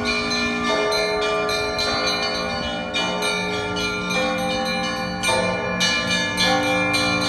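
Russian Orthodox bell ringing from the Alexander Nevsky Lavra belfry. Many bells of different pitches are struck in a fast, steady rhythm: the smaller bells strike several times a second over the long ring of the larger, deeper bells.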